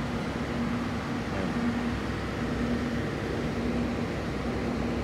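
Steady machinery hum in a workshop, with a low tone that pulses on and off roughly once a second.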